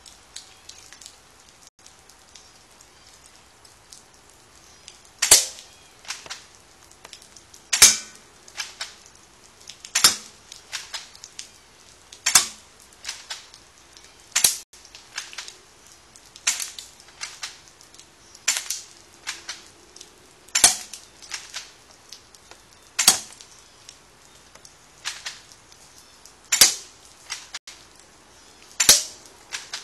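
Airsoft Beretta Storm rifle shooting at aluminium cans: about a dozen sharp snaps, one every two to two and a half seconds, beginning about five seconds in. Each snap is followed by a few lighter ticks as the BBs strike and glance off the cans and the plastic bin lid.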